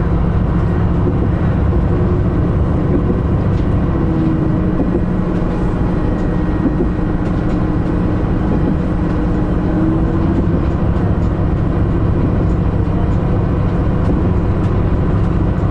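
Diesel railcar running steadily along the track: a constant low engine drone over the rumble of wheels on the rails.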